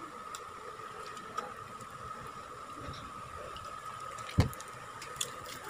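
Glue-and-lotion slime being kneaded and stretched by hand while it activates, giving faint wet squishing and small clicks, with one short thump about four seconds in. A steady faint high hum runs underneath.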